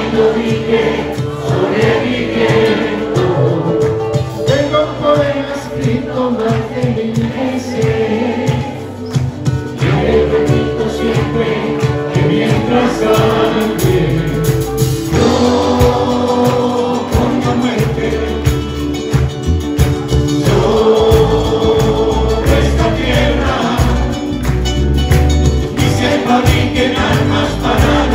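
Latin American folk band playing live, several voices singing together over guitars, bass and percussion, recorded from among the audience.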